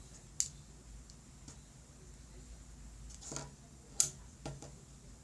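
Small magnetic parts of a toy pen clicking together as they are handled: a sharp click about half a second in, then a short cluster of clicks between three and four and a half seconds in.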